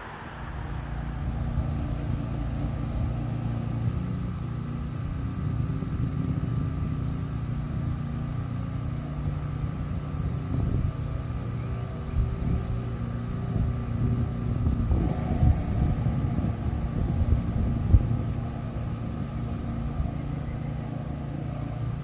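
A motor running steadily, a low rumble with a steady hum, with a few louder knocks about two thirds of the way through.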